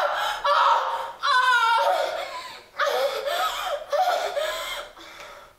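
A woman crying out in loud, high-pitched wordless bursts, her pitch bending up and down, trailing off near the end.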